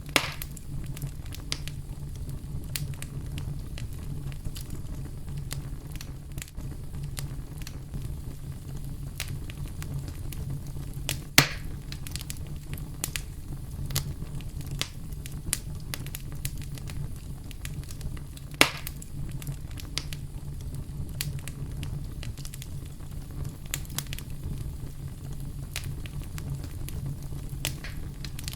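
Campfire crackling, with frequent sharp pops over a steady low rumble of brown noise. Three pops stand out as loudest: one just after the start, one about eleven seconds in and one about nineteen seconds in.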